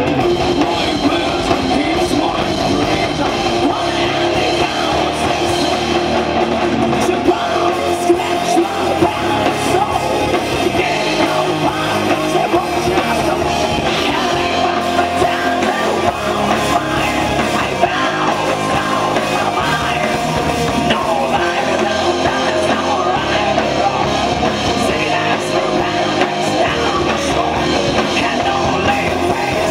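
Live heavy metal band playing: two electric guitars and drums, with a female singer singing over them.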